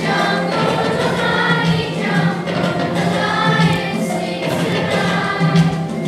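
A children's choir of primary-school pupils singing together over a steady musical accompaniment.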